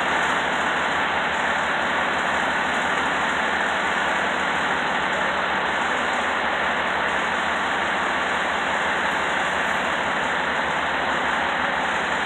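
Fire department tower ladder truck's engine running steadily while parked, a constant hiss-like hum with no changes.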